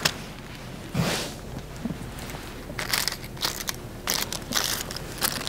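Aluminium highlighting foil crinkling and crackling as it is folded and creased over a section of hair, in short irregular bursts that come more often in the second half.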